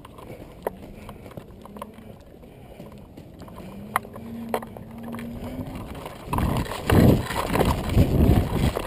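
Fairly quiet at first, with a few sharp clicks. From about six seconds in come heavy, quick, irregular thuds of running footsteps and gear jostling against a body-worn action camera.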